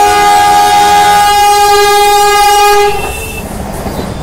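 Vande Bharat Express trainset sounding one long, steady horn blast that cuts off about three seconds in, followed by the rumble of its wheels on the rails as it passes close by.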